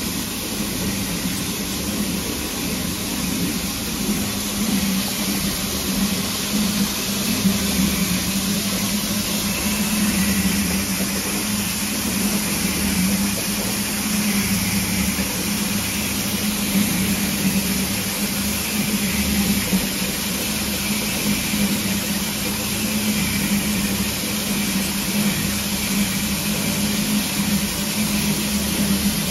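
SNCF 141 R 2-8-2 steam locomotive standing with steam up: a steady hiss of escaping steam over a continuous low hum.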